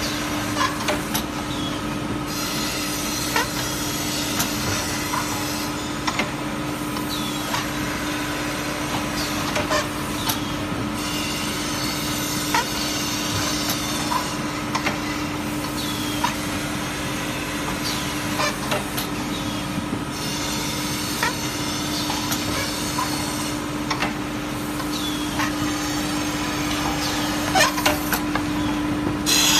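Melamine tableware edge grinding machine running: a steady motor hum under the rasping of the grinding head on the plate rims. The rasping comes and goes every few seconds as each plate is ground, with scattered sharp clicks from the mechanism.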